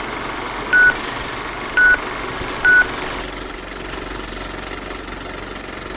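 Vintage film countdown leader effect: a film projector running with a steady clatter and hum, and three short high beeps about a second apart.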